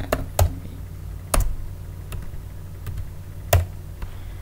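Computer keyboard being typed on: scattered single keystrokes at an uneven, unhurried pace, over a steady low hum.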